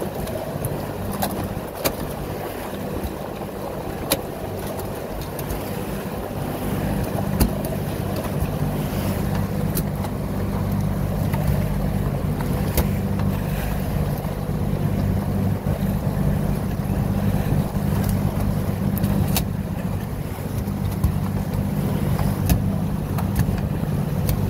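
Boat engine running steadily under way, a constant low hum, with water rushing along the hull and sharp knocks now and then.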